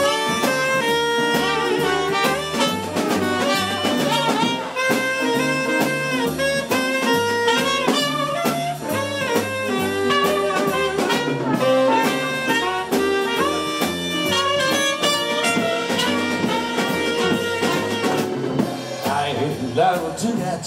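Jazz big band playing an instrumental break in swing: a trumpet and a tenor saxophone play solo lines over the drum kit and rhythm section.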